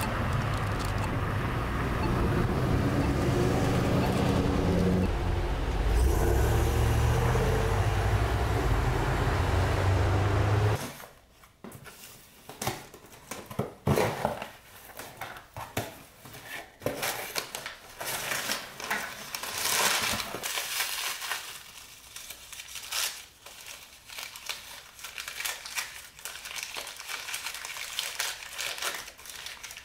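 For about the first ten seconds, street ambience with passing traffic. Then an abrupt change to close, irregular crinkling, rustling and tearing of plastic wrapping as items are unpacked from a cardboard shipping box.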